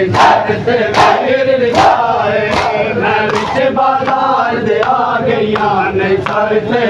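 Crowd of men chanting a noha in unison while beating their chests in matam. The chest slaps come in a steady beat, about one every 0.8 seconds, and are loudest in the first half.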